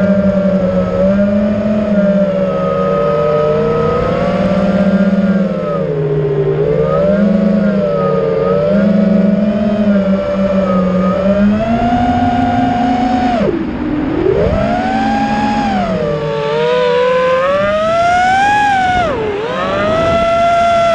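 FPV quadcopter's electric motors and propellers whining, the pitch rising and falling with the throttle. About 13 seconds in, and again near the end, the pitch drops sharply and then climbs back.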